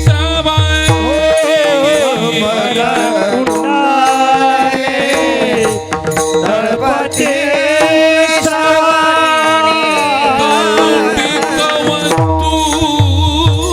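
A man singing a Marathi kirtan melody over a steady held drone, with hand-drum strokes during the first second or so and again near the end.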